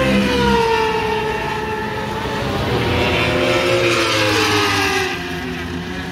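Racing motorcycle engines going by at high revs, their pitch gliding down as each passes, one after another.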